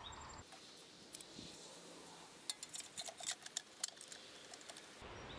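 Faint, quick clicks and clinks of a sheet-metal engine blower housing and its bolts being handled and fitted onto a Kohler engine, sped up to four times speed; the clicks come in a cluster through the second half.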